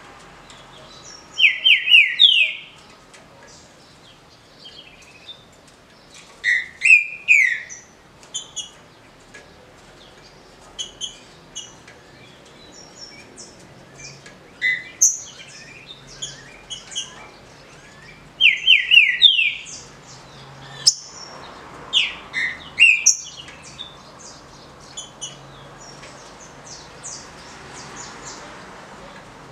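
Green-winged saltator (trinca-ferro) singing its short 'de roda' song: loud phrases of a few quick falling notes, each about a second long, repeated several times, with softer thin chirps in between.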